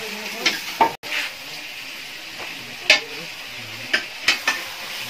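Pork frying in a metal pan over a wood fire, sizzling steadily, with about six sharp knocks of utensils against the pan as it is stirred.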